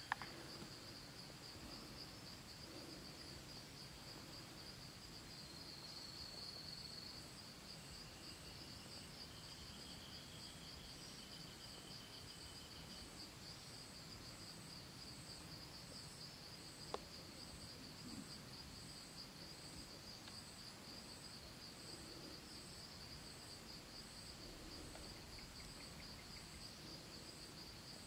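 Faint woodland ambience of insects trilling: a steady, high, continuous drone with a second, higher chirp pulsing about once a second. A single soft click a little past halfway through.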